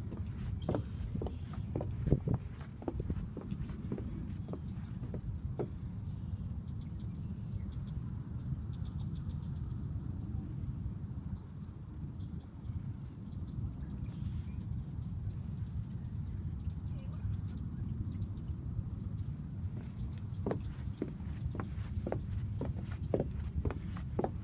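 A steady high insect chorus of crickets runs throughout over a low steady rumble. Footsteps on wet wooden boardwalk planks sound for the first few seconds, stop, and start again near the end.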